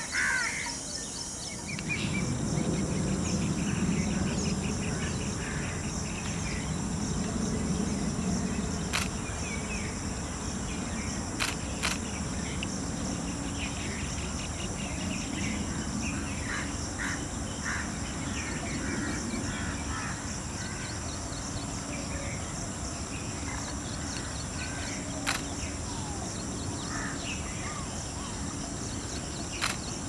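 Natural forest ambience: a steady high insect buzz, scattered short bird chirps and calls, a low rumble for the first several seconds and a few sharp clicks.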